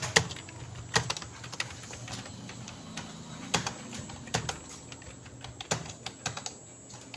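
Computer keyboard keys being struck in quick irregular clicks, with a few louder keystrokes standing out.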